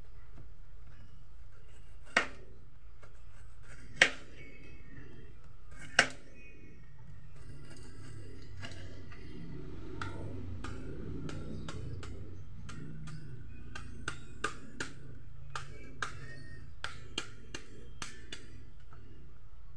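A kitchen knife knocking down onto a cutting board three times, about two seconds apart, as it cuts into a banana blossom. Then a run of lighter, irregular clicks and ticks as the knife shaves and slices the blossom.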